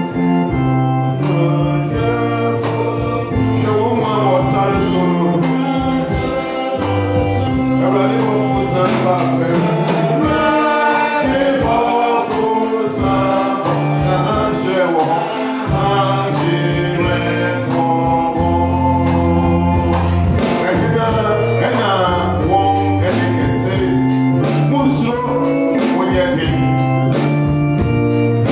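Congregation singing a hymn with an electronic keyboard accompanying in an organ voice, long bass notes held under the melody.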